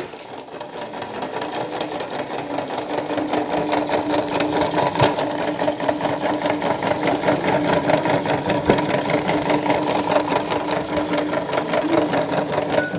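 Toy washing machine's small battery motor running steadily with a fast rattle, building up over the first couple of seconds.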